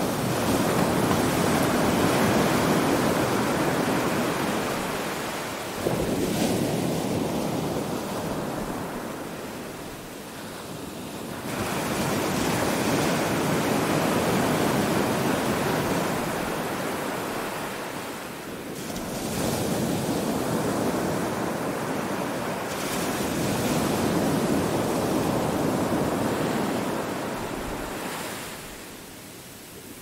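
Ocean surf breaking and washing up a sandy beach, swelling and ebbing in three long surges about ten seconds apart.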